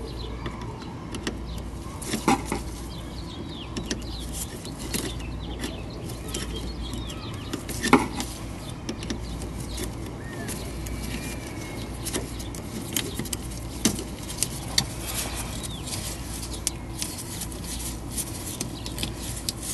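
Scattered clicks and knocks of a screwdriver and gloved hands working the hose clamps and rubber coolant hoses on an RV's heater control valve, the loudest knock about eight seconds in, over a steady low hum.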